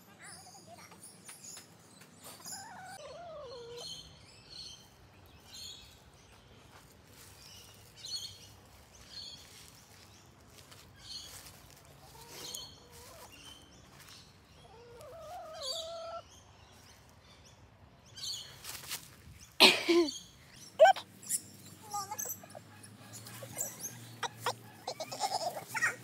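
Backyard hens' chirps and short gliding calls, scattered and sped up, so higher-pitched than normal. Two sharp knocks come about three-quarters of the way through.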